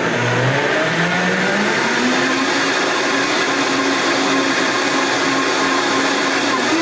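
Electric blender running with eggs in the jar, its motor whine rising in pitch over the first two seconds as it spins up, then holding steady over a loud whirring rush, and stepping up higher near the end.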